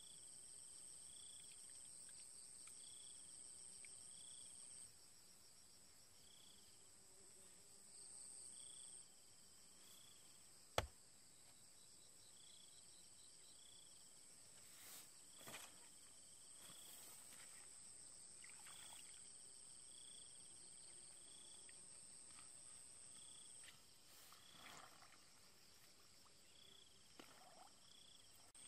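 Faint, steady high-pitched trilling of crickets and other insects, with short high chirps repeating every second or two. A few soft scrapes and knocks of a hoe digging into wet soil, with one sharp knock about eleven seconds in.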